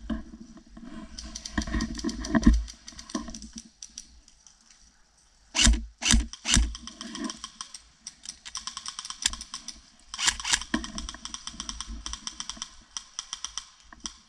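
Airsoft electric rifle firing in long rapid-fire strings, a fast run of mechanical clicks. Three loud knocks come in quick succession about halfway through.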